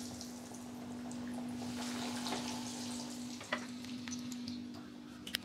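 Breadcrumb-coated paneer rolls deep-frying in hot oil: a steady sizzle with scattered crackles and a few sharp pops, easing slightly in loudness toward the end.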